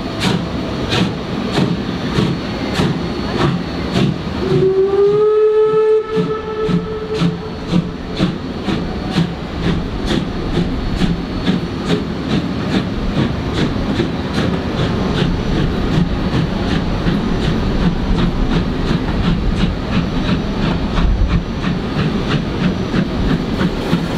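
Train hauled by the class 01 steam locomotive 01 118 rolling past with a steady rumble and an even clicking of its wheels, about two clicks a second. About four and a half seconds in, the locomotive's steam whistle sounds once for about three seconds, its pitch rising slightly at the start.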